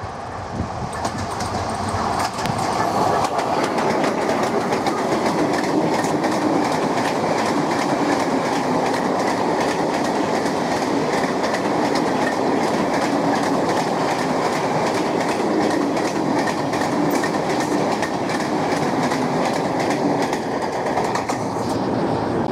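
Electric freight train passing close by, a locomotive followed by a long string of bulk tank wagons: steady rumble of steel wheels on rail with a fast clickety-clack of wheels over rail joints, building over the first few seconds as it draws near.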